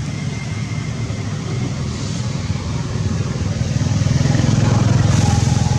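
A motor vehicle engine running steadily, growing louder from about halfway through.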